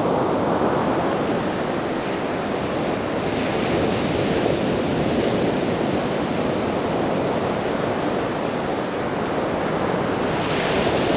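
Ocean surf breaking and washing up the beach, a steady rushing noise, with a brighter rush of water near the end.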